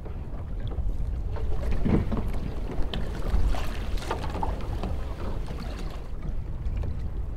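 Wind rumbling on the microphone over water splashing and lapping around outrigger canoes at sea, with a sharp knock about three seconds in.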